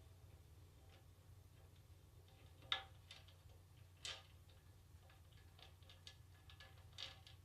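Scattered light clicks and taps of metal parts and tools being handled, the sharpest about 2.7 s in and others near 4 and 7 seconds, over a faint steady hum.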